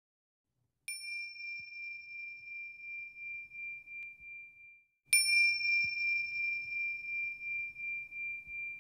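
A high, bell-like chime struck twice, about four seconds apart, the second strike louder. Each strike rings on as a clear, steady tone with a slow pulsing waver.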